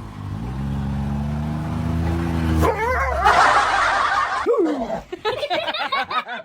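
A small dog barking and whining while a person laughs, after a low steady drone at the start.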